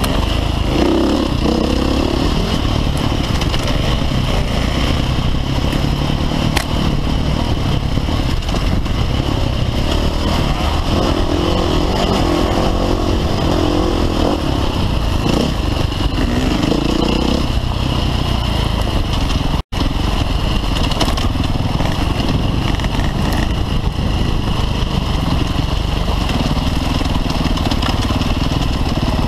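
Off-road dirt bike engine running steadily under way on a dirt trail, heard close up from a camera mounted on the bike. The sound cuts out for an instant about two-thirds of the way through.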